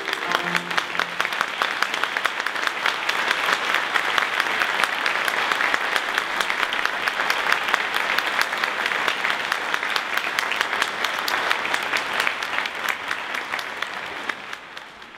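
Audience applauding steadily. Piano notes are held and die away in the first second, and the applause fades out at the very end.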